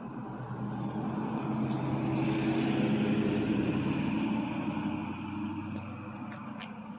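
A car engine driving past, growing louder to its peak about three seconds in, then fading away.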